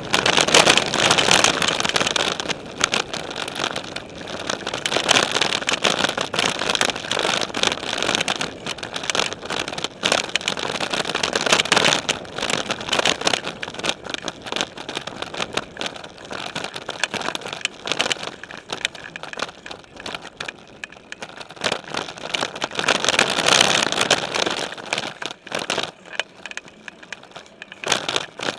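Mountain bike riding over a dirt singletrack: knobby tyres rolling on dirt and gravel with the bike's frame and drivetrain rattling over bumps, picked up through a frame-mounted camera. The noise rises and falls with the terrain, with many small clicks and knocks, and is quieter for a few seconds near the end.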